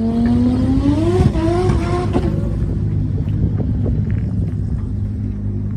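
Audi V8 engine revved up, its pitch rising over about two seconds, then dropping back to a steady, deep idle with a few short pops.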